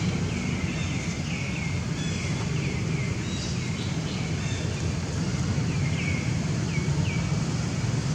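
Outdoor ambience: a steady low wind rumble with a series of short, high chirps that each fall quickly in pitch, scattered irregularly throughout.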